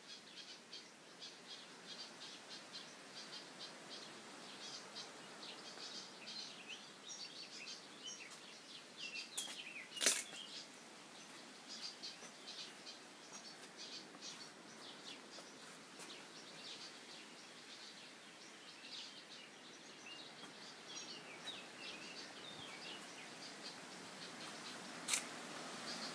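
Small birds chirping in quick, short repeated notes, with two sharp clicks, one about ten seconds in and one near the end.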